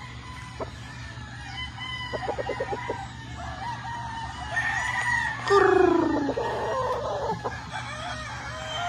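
Gamefowl roosters crowing, several calls overlapping across the yard, with some clucking about two seconds in. The loudest crow comes about five and a half seconds in and falls in pitch at its end.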